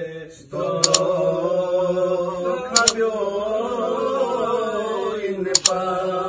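A man singing a devotional chant without accompaniment, in long held, slowly bending notes, with a brief breath pause just after the start. Sharp double claps cut in three times.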